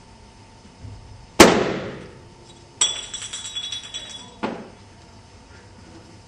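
A loud crash of hard objects, then about a second and a half of rapid clinking and rattling with a high ringing, ending in a single knock.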